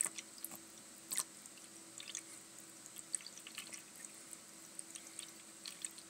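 Electric pet water fountain: its thin stream trickling into the plastic bowl, with irregular small drips and splashes over a faint steady hum.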